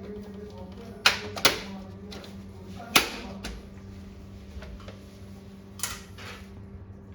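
Sharp metal clicks and knocks from a desktop workstation's steel case being closed and its cabinet screws fastened: two close together about a second in, one at three seconds, and a lighter one near six seconds.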